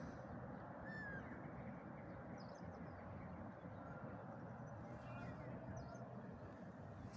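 Faint outdoor ambience: a steady background noise with a few short, faint bird calls scattered through it.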